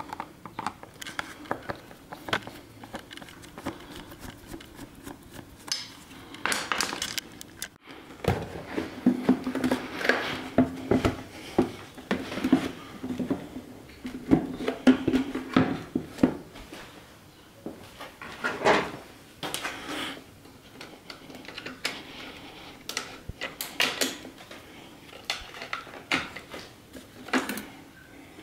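Hand work on a motorcycle's intake: a screwdriver loosening the airbox hose clamps, then the plastic airbox and filter housing being worked loose and lifted off the carburettors. Scattered clicks, knocks and scraping, with no engine running.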